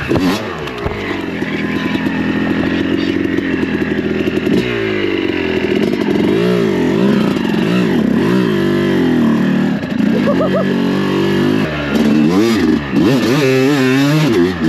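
Yamaha YZ250 two-stroke single-cylinder dirt bike engine running under riding, fairly steady for the first few seconds, then revving up and down repeatedly as the throttle is worked.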